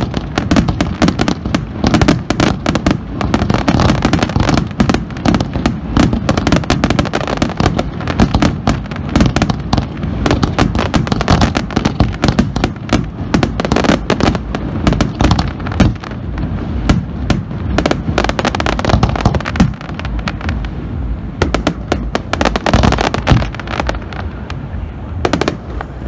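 Aerial fireworks display: a dense barrage of shell bursts and crackle, many reports a second. It thins a little in the middle and builds again near the end.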